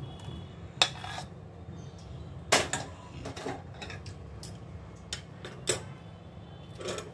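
Steel ladle clinking and knocking against a steel pot while serving, about five sharp clinks, the loudest about two and a half seconds in.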